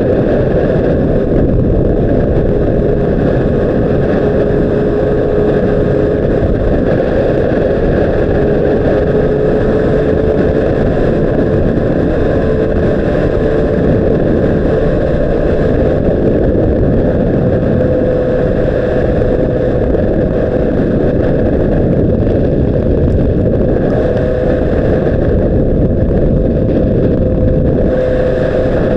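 2006 Honda CBR600RR's inline-four engine running at a nearly steady pitch, heard through heavy wind rumble on the microphone.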